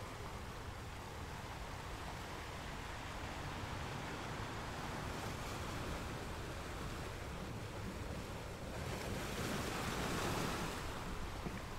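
Steady rushing noise, like surf or wind, that swells louder about nine seconds in and eases off near the end.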